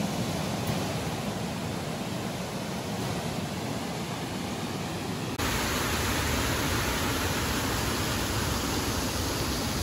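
Water pouring over a river dam: a steady rushing noise. About five seconds in, it abruptly becomes louder and brighter.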